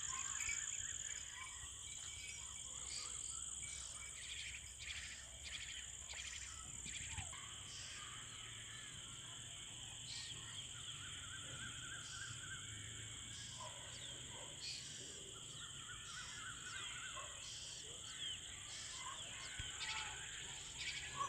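Crickets trilling steadily in two high, unbroken bands, with faint short bird calls here and there.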